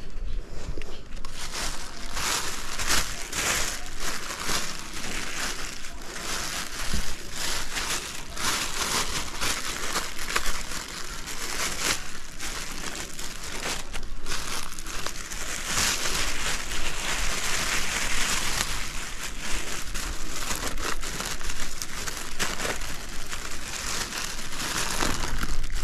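Thin plastic sheeting crinkling and rustling continuously as hands handle and fold it: a dense run of fine crackles.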